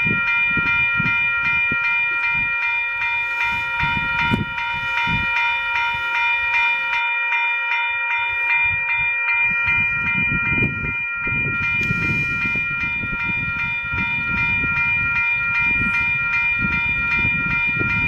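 Railroad crossing bell ringing without a break, rapid even strokes on a steady metallic tone, over a low gusty rumble of wind on the microphone.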